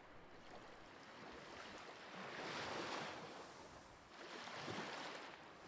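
Small waves washing up onto a sandy beach: a faint hiss of surf that swells twice as the water runs in.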